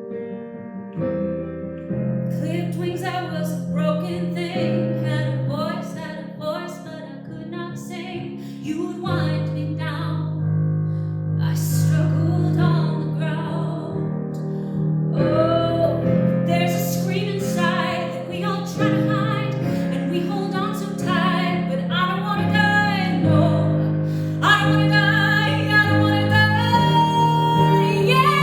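A song with a woman singing over piano and sustained keyboard chords.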